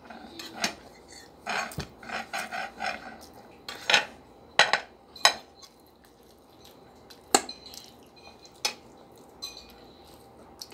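Metal spoons and forks clinking and scraping against ceramic plates during a meal, in scattered sharp clinks with a quick run of them a couple of seconds in.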